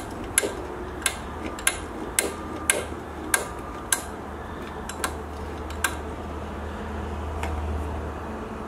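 Metal tools and a metal workpiece tapping and clinking at about two sharp taps a second, some with a short metallic ring. The taps thin out after about six seconds, over a low steady hum.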